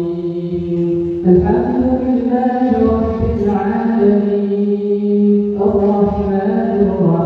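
Imam reciting the Quran aloud in the drawn-out, melodic style of prayer recitation, one voice holding long notes that step up and down in pitch. New phrases begin about a second in and again about five and a half seconds in.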